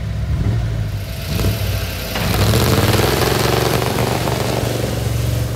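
1985 Ford Bronco's engine accelerating through its cherry bomb exhaust, getting louder from about two seconds in as the truck pulls away on snow in four-wheel drive.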